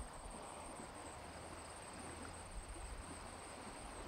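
Faint outdoor field ambience: a steady high-pitched insect chorus, such as crickets, over a low rumble.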